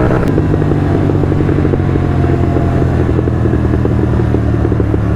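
Royal Enfield Continental GT 650 parallel-twin running through a Red Rooster aftermarket exhaust with a Code6 tune, its revs falling off the throttle. The exhaust crackles and pops rapidly on the overrun, over the steady engine drone.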